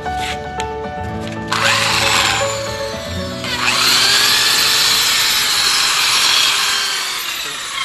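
Electric rotary polisher running with a foam buffing pad on the painted fairing. It starts about a second and a half in, dips briefly, then runs louder from about three and a half seconds, its motor whine rising and falling in pitch as it works, before easing off near the end.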